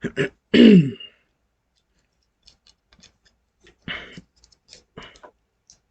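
Small plastic clicks and light knocks of model-kit pieces being handled and pressed together, a few at a time, with a denser clatter about four and five seconds in. Near the start, a short wordless vocal sound falling in pitch.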